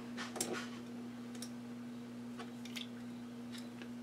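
Faint small clicks and taps of a screwdriver and steel screw being worked out of a Singer 201 sewing machine's needle bar end. A short cluster comes about half a second in, then single ticks, over a steady low hum.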